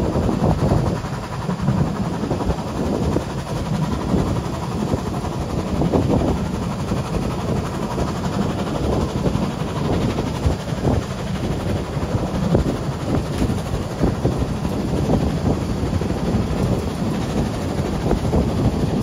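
Narrow-gauge steam train running at speed, heard from an open car behind a Saxon VII K steam locomotive: a steady low rumble of wheels on the rails and the working locomotive.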